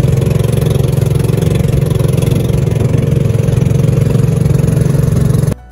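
Engine of a motorized outrigger boat (bangka) running steadily under way, a loud, even drone. It cuts off suddenly near the end.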